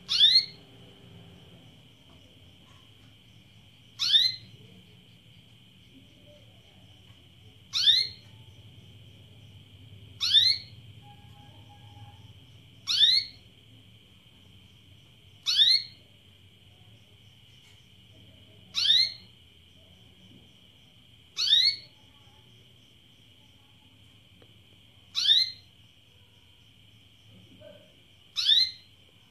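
Female domestic canary giving its breeding call: a short, sharp, falling call repeated ten times, about every three seconds. This is the call of a hen in breeding condition asking for a mate. A steady high-pitched hum runs underneath.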